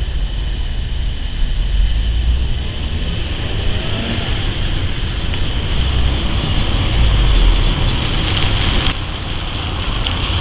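Silver compact sedan driving past close by, its sound building and peaking as it passes near the end, with heavy wind rumble on the microphone.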